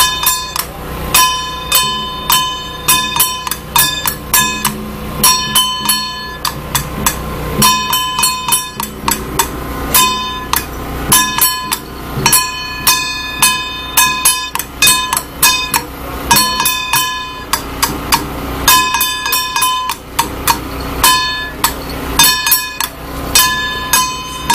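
Temple troupe percussion: a small hand-held gong struck hard in rapid clusters of ringing metallic beats, in a steady repeating rhythm with short breaks between the groups.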